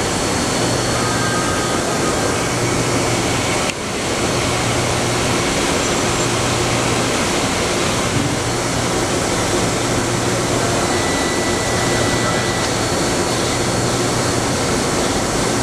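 An EDM DrillMate 430I CNC EDM hole drill runs through its automatic electrode change, giving a steady hiss with a low hum that cuts in and out every second or two. The sound dips briefly about four seconds in.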